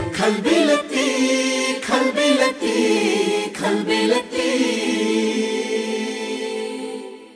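Soundtrack music with singing voices over sparse percussive hits and no bass. The music thins to sustained tones and fades out near the end.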